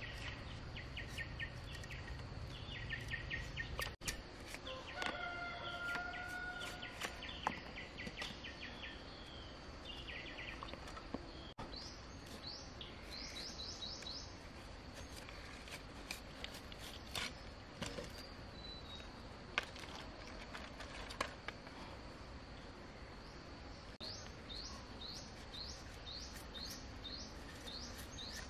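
Machete working thin bamboo strips: the blade scrapes along and splits the strips, with scattered sharp clicks and taps of steel on bamboo. Birds chirp in quick repeated runs in the background over a steady high-pitched drone, with a short bird call about five seconds in.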